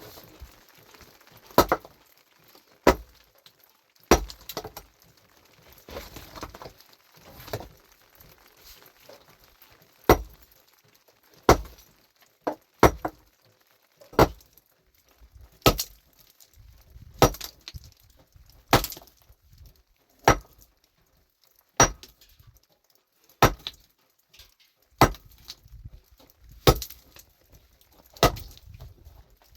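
A hand tool striking hard material over and over in a steady working rhythm, one sharp blow about every one and a half seconds.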